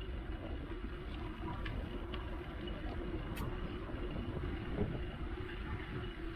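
Wind buffeting the microphone during a bicycle ride, a steady low rumble with a faint even hum through it and a few light clicks.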